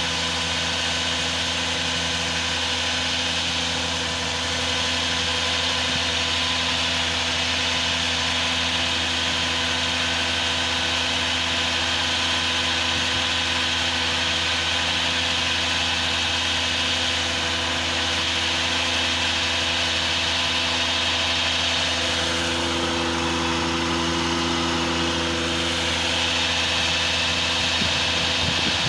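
Sludge suction truck's engine running steadily while a heavy stream of muddy liquid gushes out of its tank and splashes into a concrete pit, a constant hum under a rushing, splashing hiss.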